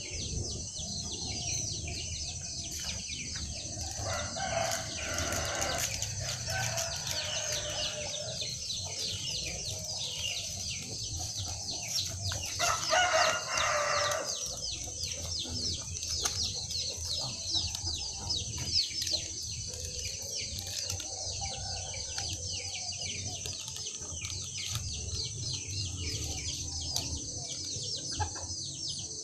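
A rooster crowing twice, the second crow about halfway through and the louder, over constant chirping of small birds and a steady high hiss.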